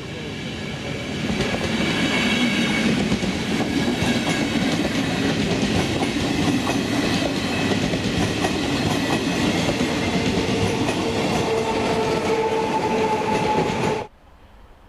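Passenger train of coaches passing close by at speed, its wheels clattering over the rails. The sound builds over the first second or so and then holds steady and loud. A steady tone joins in a few seconds before it cuts off abruptly near the end.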